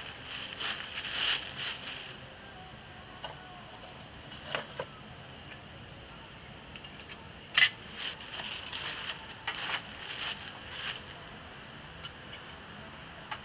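Dry leaves crunching and rustling underfoot, then scattered small clicks and one sharp knock about halfway through as a cast-iron Dutch oven on a burning log is handled.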